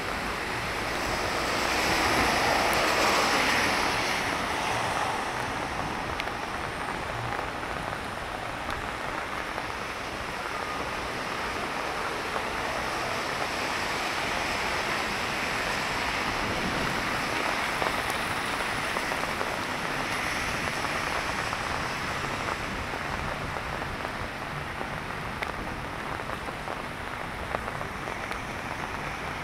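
Steady rain on a wet city street mixed with the hiss of car tyres on wet asphalt and wind on the microphone. The noise swells louder about two seconds in, then settles to a steady level.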